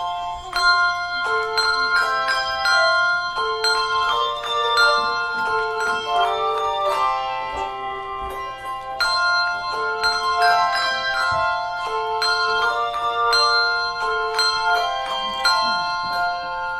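Handbell choir playing a tune: many bells struck one after another and together in chords, each note ringing on after it is struck.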